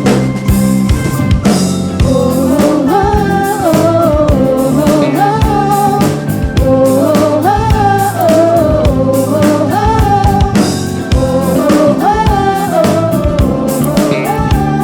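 Live soul band playing, with a drum kit, bass and guitar under a lead voice singing a wavering melody.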